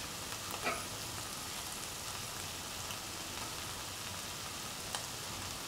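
Rice and tomato masala sizzling gently in a pan on low flame, a steady hiss, with a couple of faint clicks, one about a second in and one near the end.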